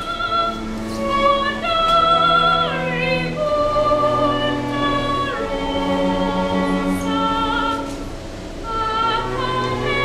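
A girl singing a slow song in long held notes, sliding between some of them, accompanied by violins and a cello.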